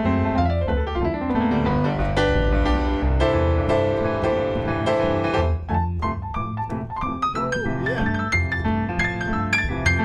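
Piano playing a jazz tune, chords over a low bass line.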